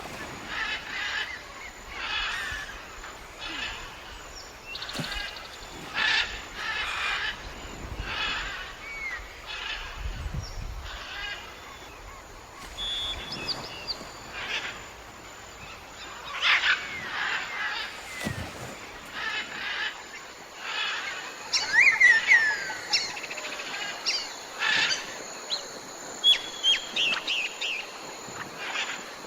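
Birds calling and singing. A call repeats about once a second through the first half, then quick high chirps that sweep in pitch come in over the second half.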